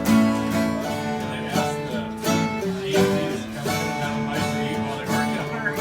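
Music led by a strummed acoustic guitar, with chords ringing on.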